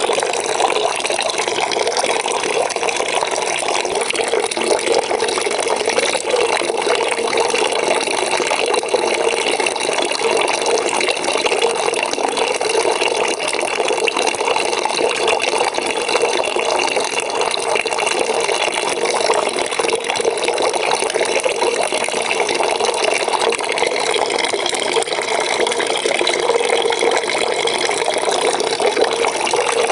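Water pouring from a tap into a bucket, a steady, unbroken splashing stream.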